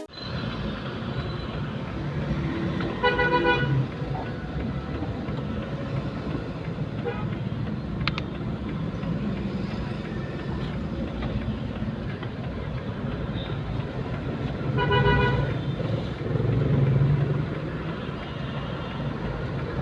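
Road traffic and engine noise from a moving vehicle, with two short vehicle horn honks, one about three seconds in and one about fifteen seconds in.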